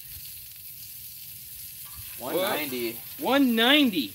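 Bacon sizzling in a skillet over a campfire, a steady hiss. About two seconds in, a voice gives two loud, drawn-out calls that waver up and down in pitch.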